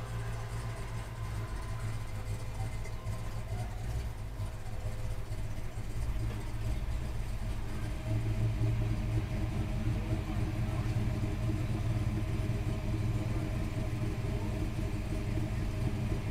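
Car engines idling with a steady low rumble, heard from inside a car's cabin. The rumble grows louder about eight seconds in, as a red classic two-door hardtop pulls up close and sits idling.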